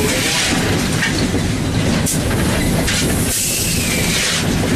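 Steam locomotive No. 630 heard from inside its cab while under way: a steady, loud rumble and clatter of the engine and wheels. Two longer washes of hiss rise over it, one at the start and one about three seconds in.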